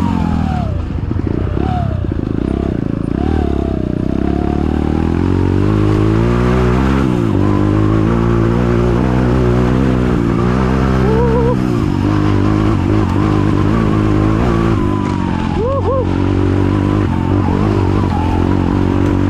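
Trail motorcycle engine running under changing throttle, its pitch rising and falling repeatedly, with a thinner wavering whine above it.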